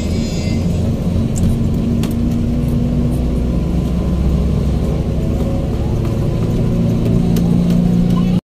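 Engine and road noise heard from inside a moving passenger vehicle's cabin: a steady low drone with a humming tone, cutting off abruptly near the end.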